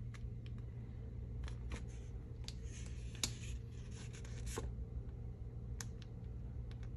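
Adhesive vinyl sheet on its backing crackling and ticking as a weeding hook picks small cut pieces off it, with one sharper click about three seconds in, over a steady low hum.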